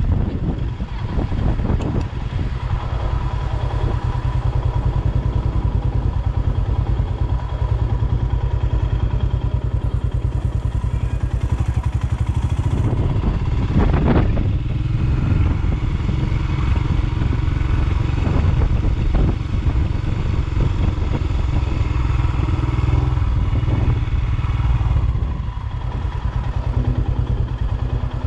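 Train running through the station: a steady low rumble with wheels clattering on the rails, and a louder burst of clatter about halfway through.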